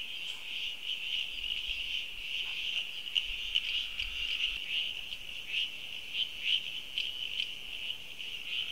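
Rainforest ambience: a steady, high-pitched chorus of calling animals, with short louder chirps rising out of it here and there.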